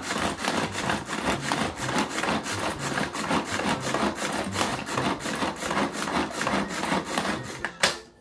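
Pull-cord manual food chopper mincing cooked chicken breast: rapid repeated pulls of the cord, each spinning the blades with a rasping whirr, several strokes a second. It stops with a sharp click near the end.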